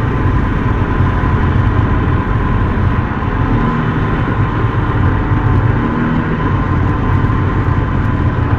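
Snowmobile under way along a snowy trail, its engine running at a steady pitch with a constant whine over the low drone of the machine.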